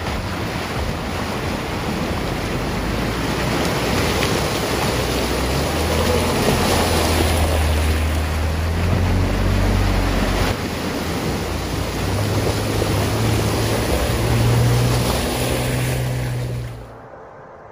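Jeeps wading through a shallow creek: water rushing and splashing around the tyres over the low hum of the engines, whose note shifts as each vehicle passes. The sound stops abruptly near the end.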